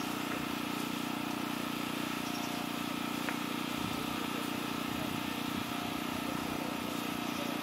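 A steady low hum over an even hiss.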